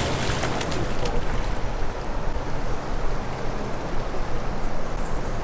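Steady rushing noise of the fast river current below a dam.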